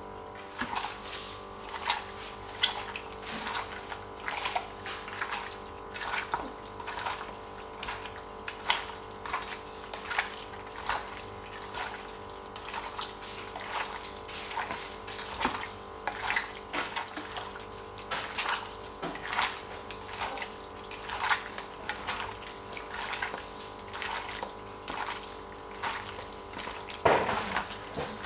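Water splashing in short, irregular bursts, one or two a second, with a steady hum underneath.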